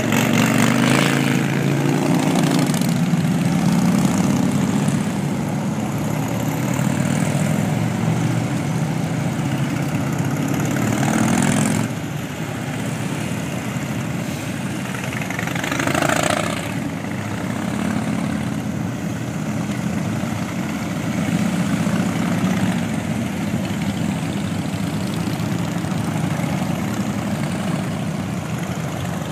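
A procession of cruiser motorcycles riding past one after another, their engines running at low revs. The sound swells whenever a bike passes close, most strongly in the first few seconds and again around the middle.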